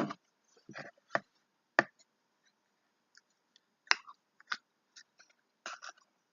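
Slime being poked with fingers: a string of short pops and clicks at uneven spacing, with a pause of about two seconds in the middle.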